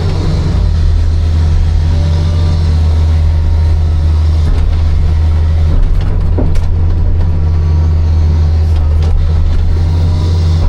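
Hitachi 260 hydraulic excavator's diesel engine running steadily under working load, a deep continuous drone, heard from the operator's seat. A few light knocks come through near the middle and toward the end.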